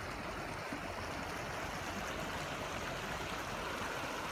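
Small mountain stream running steadily.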